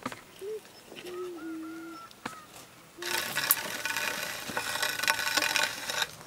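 Cut tree branches rustling and crackling as they are handled, with a dense burst of crackle and snapping that starts about halfway and stops shortly before the end, after a few scattered clicks.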